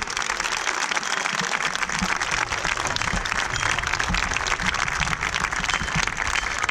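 A crowd applauding, a dense steady patter of many hands clapping.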